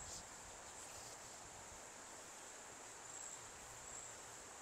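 Faint outdoor ambience: a steady high-pitched insect trill over a soft background hiss.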